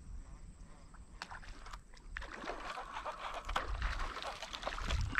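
Pond water sloshing and splashing, with many small splashes and clicks that grow louder over the last three seconds, over a low rumble.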